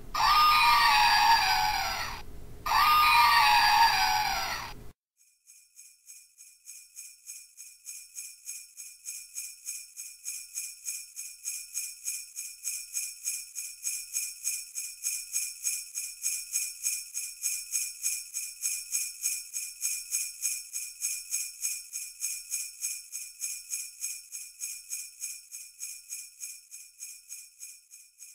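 An elephant trumpeting twice, two loud calls of about two seconds each with bending pitch. Then, from about five seconds in, sleigh bells shaken in a steady rhythm, about three or four shakes a second, swelling up gradually and fading near the end.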